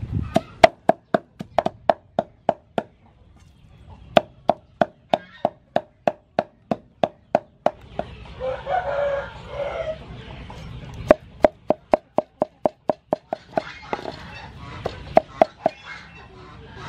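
Meat cleaver chopping pork into mince on a thick wooden chopping board: rapid, even strokes about four or five a second, each with a short ring, in several runs with pauses. Chickens cluck in the background during the pauses.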